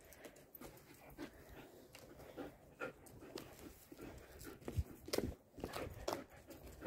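A sable-and-white collie-type dog panting in quick, short breaths while playing close up. A few louder knocks and rustles come about five seconds in.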